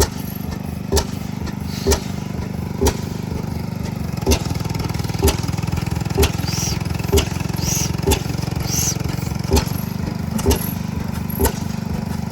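Antique stationary gas engine firing with sharp exhaust pops about once a second, a beat occasionally skipped, over the steady low drone of other old engines running.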